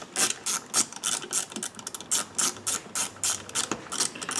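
Ratcheting socket driver clicking in a quick, even run of several clicks a second as a crankcase bolt is run down on a Farmertec 372 chainsaw case.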